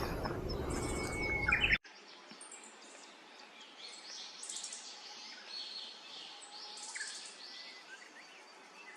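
Loud rumbling noise that cuts off abruptly about two seconds in, then wild songbirds chirping and trilling in short, high repeated phrases.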